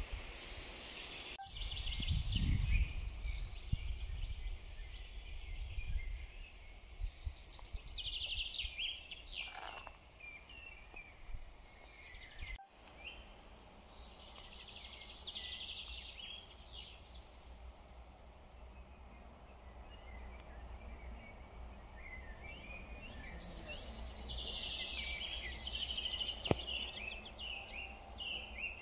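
Songbirds singing and chirping in the trees in several bursts, loudest near the middle and again near the end. A low rumble sits underneath, strongest a couple of seconds in.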